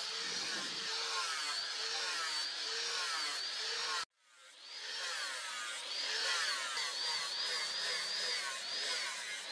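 Angle grinder with an abrasive disc grinding the face of a steel cleaver blade forged from a leaf spring; the motor whine wavers up and down as the disc is worked across the steel. The sound cuts out abruptly about four seconds in and fades back up.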